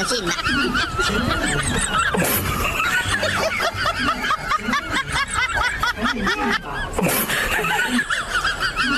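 High-pitched giggling laughter, fast and unbroken, the pitch wobbling up and down rapidly.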